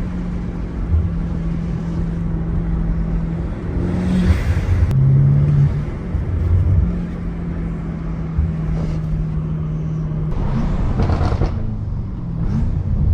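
BMW M8 Competition's twin-turbo V8 running under way: a steady engine drone that dips in pitch briefly about five seconds in. Near the end the pitch rises and falls several times as the car accelerates, with a rush of road and exhaust noise.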